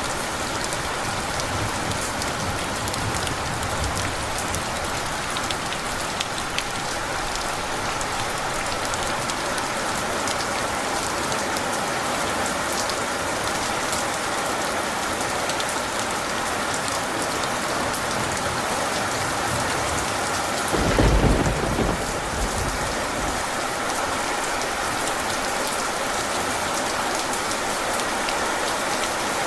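Steady heavy rain, with drops pattering on a surface, and one short, deep thunder rumble about two-thirds of the way through.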